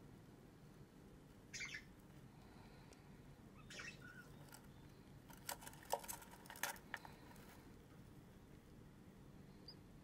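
Near silence broken by a few faint, short scratches and clicks, clustered about five to seven seconds in: a budgerigar hen shifting about in her nest box among her chicks.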